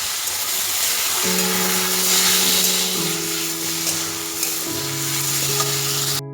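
Vegetables frying in a pan, a loud, steady sizzle with stirring, over background music of held notes. The sizzle cuts off suddenly near the end.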